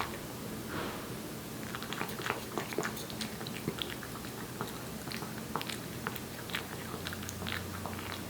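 A Korean shorthair cat eating wet cat food: quick, irregular wet smacks and chomps, several a second.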